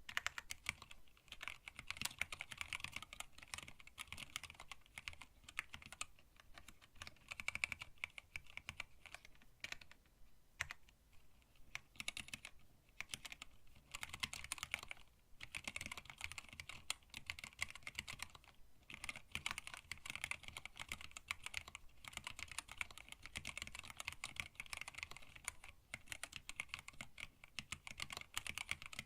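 Typing on a hand-wired split mechanical keyboard in a stacked acrylic case, with Tealio linear switches under blank PBT keycaps: a steady run of fast keystrokes, broken by a few brief pauses.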